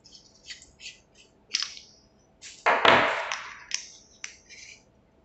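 Hands handling and twisting a UniqueFire UF-T20 infrared flashlight against bubble wrap: scattered crinkles and clicks, with one louder rustling knock about three seconds in.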